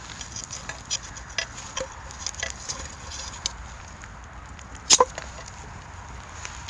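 Pine cones burning in a clay shichirin grill, crackling and popping irregularly, with a louder double clack about five seconds in as the grill is tended.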